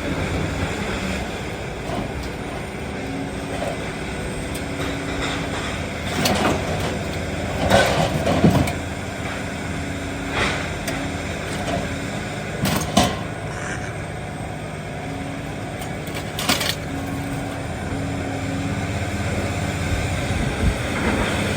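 Scrapyard lifting magnet unloading scrap metal: a heavy engine runs steadily while loose metal clanks and bangs several times as pieces are pulled up and shift.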